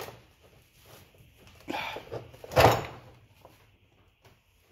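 Dull knocks of metal tools against an old golf cart contact board as it is handled: a softer one just under two seconds in, then a louder, sharper one about two and a half seconds in.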